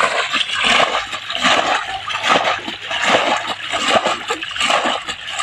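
Muddy pond water being bailed out by hand with a metal bowl: repeated scooping and splashing as each bowlful is flung out, several splashes in quick, uneven succession.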